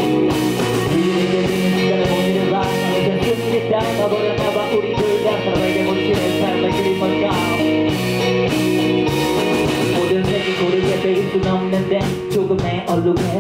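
Live band of electric guitars, electric bass and drum kit playing a song with a steady drum beat, with a rapper's amplified vocal over the top.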